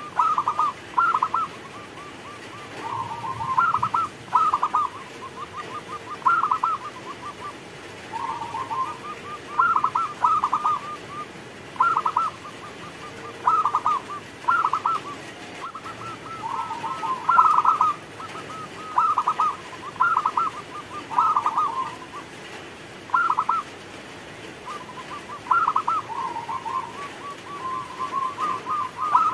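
Zebra dove (perkutut) singing: rapid, stuttering cooing trills around one pitch, in short phrases repeated every second or two.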